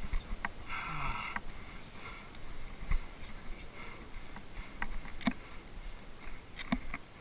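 Wind buffeting an action camera's microphone, with scattered footsteps and light knocks on rock.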